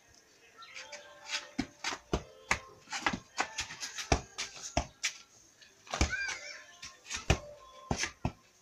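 A football being juggled, a quick, uneven run of thuds as it is struck by foot again and again.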